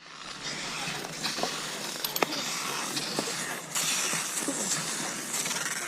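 Cross-country skis swishing over snow in uneven surges, with a couple of sharp clicks about two seconds in and a few short squeaks.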